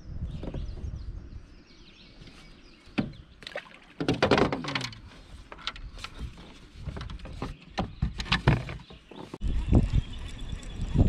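Irregular knocks, clatters and a scraping creak from a kayak and its gear being handled, with spells of low rumbling.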